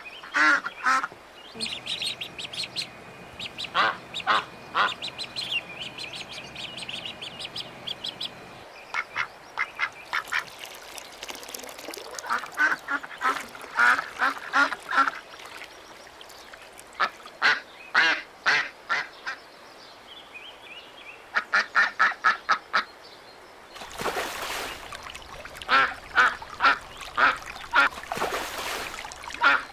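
Ducks quacking in quick runs of short calls, several bouts one after another, with some higher-pitched chatter in the first few seconds. A rushing noise sits under the calls for roughly the last six seconds.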